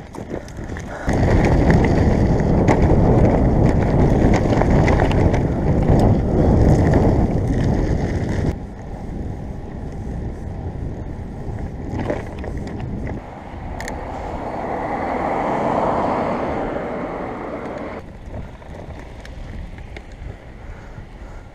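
Wind buffeting the microphone of a camera on a moving bicycle, over the low rumble of the tyres rolling on track and road. It is loudest from about a second in until about a third of the way through, then drops to a softer rushing with one gradual swell near two-thirds of the way.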